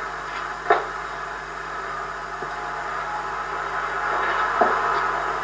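Steady background hum and hiss, with two brief soft knocks: one about a second in and one near the end.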